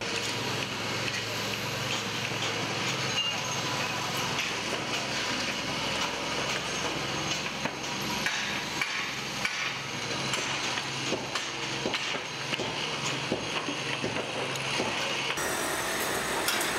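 Building-site noise: irregular knocks and clanks of tools on metal and wood over a steady low machine hum. The mix changes about fifteen seconds in.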